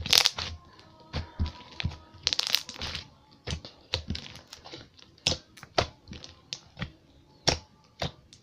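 Pudding slime being squeezed and poked by hand, giving irregular sharp clicks and pops, one or two a second, with a few longer crackly squelches near the start.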